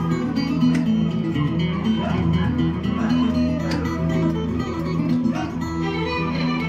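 Music led by guitar, with plucked notes over a steady bass line.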